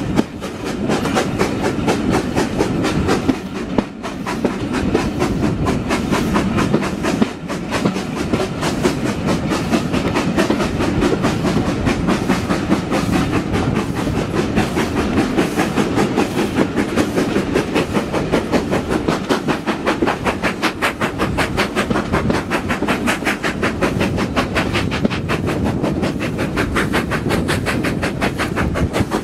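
LNER K1 steam locomotive 62005, a two-cylinder 2-6-0, working hard up a 1-in-50 climb. Its exhaust beats come quick and even, over the rumble of the carriage wheels on the rails, heard from an open carriage window.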